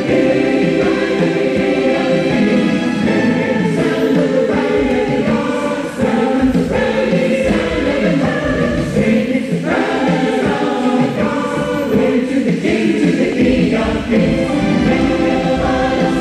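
Worship music for a round dance: a choir singing over instrumental backing.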